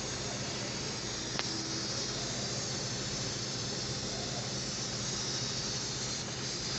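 Toyota HiAce electric fan motor running steadily: an even rush of air with a low hum underneath. It is the newly fitted replacement motor, running without vibration.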